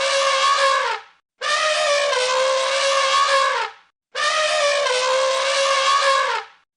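Cartoon elephant trumpet sound effect played on a loop: a held, steady note about two and a half seconds long that sags in pitch as it cuts off, repeated after short gaps. One call ends about a second in, two more follow in full, and a fourth begins at the very end.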